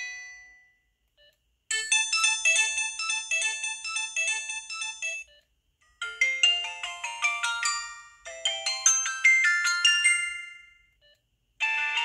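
Samsung SGH-T629 mobile phone playing ringtone melodies. A fast tune of short repeated notes starts about two seconds in and stops after a few seconds; after a brief gap, another tune of falling and rising note runs plays in two phrases. A new tune begins just before the end.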